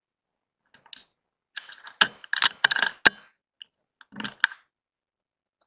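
Mechanical clicking and ratcheting from a rifle and its night-vision scope being readied, in scattered clusters with one sharp click about three seconds in.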